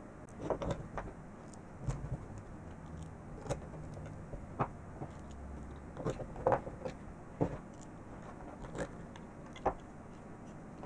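Handling of a stepper motor and its 3D-printed plastic mount on a plywood workbench: irregular light knocks and clicks as the parts are picked up, turned and set down.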